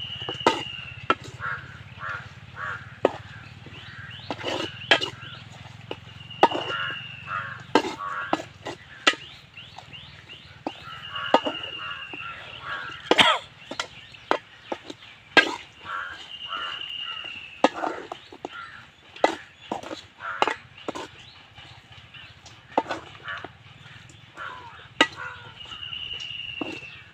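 A spoon repeatedly clinks and scrapes against a steel bowl as a thick dish is stirred over a wood fire. Behind it, a bird gives a short high call every few seconds, and other bird calls come and go.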